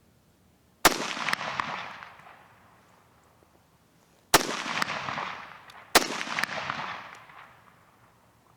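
Three rifle shots from a Chinese SKS firing 7.62×39 mm rounds, the second and third about a second and a half apart, each followed by a long rolling echo that fades out.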